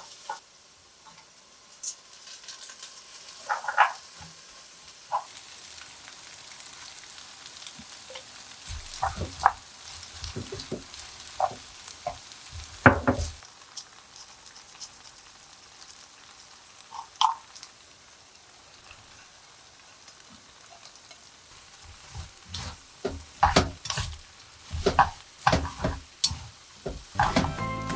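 Food frying in a pan with a steady sizzle, with scattered knocks and clicks of a utensil against the pan, more frequent near the end.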